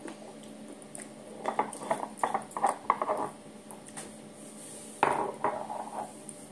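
Clinking and knocking of tableware and a plastic jar being handled on a counter, in two short clusters of taps.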